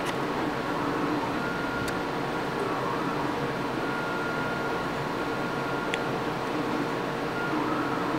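Robot arm's servo motors whining as the joints move, over a steady mechanical hum. A higher whine comes and goes twice, with a couple of faint clicks.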